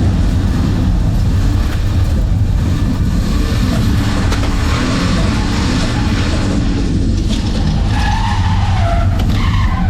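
Drift car's engine running hard with its tyres skidding on the track surface.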